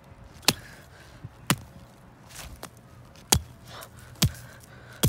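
Axe chopping at stale giant marshmallows on grass: five sharp blows, about a second apart.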